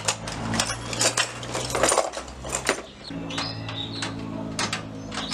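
Metal hand tools clanking and rattling together as they are rummaged through in a plastic toolbox, followed by a few scattered metallic clicks.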